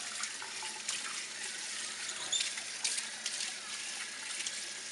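Kitchen sink pull-out sprayer hissing steadily as it sprays water over a puppy's wet fur in the sink.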